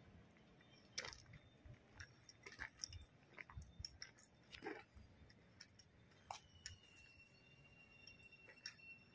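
Near silence with scattered faint clicks and taps, and a thin steady high-pitched tone that comes in about six seconds in.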